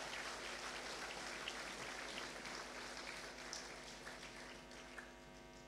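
Audience clapping, a dense patter of many hands that slowly dies away toward the end, over a faint steady mains hum.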